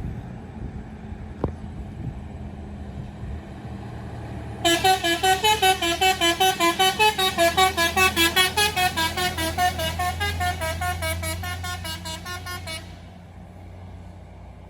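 Indonesian bus 'basuri' musical air horn playing a fast string of short notes, about four a second, stepping up and down in a tune; it starts about five seconds in and lasts about eight seconds, over the low steady hum of the bus engine.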